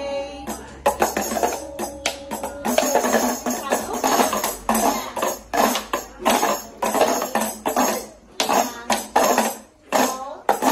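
Several small tambourines struck with mallets together in a repeated beat, their jingles ringing after each stroke.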